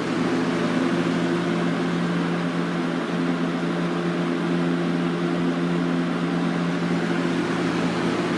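Galaxy/Lasko-built Super 3713 20-inch box fan with a Marco plastic shaded-pole motor, running steadily on high speed: an even rush of air over a steady, low motor hum.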